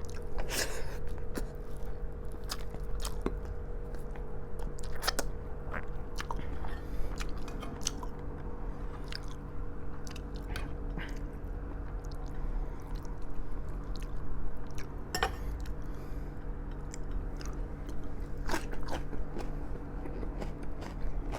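Close-miked mukbang eating: a person chewing and biting soft braised pork trotters (humba), with frequent wet mouth clicks and smacks at irregular intervals. A steady low hum runs underneath.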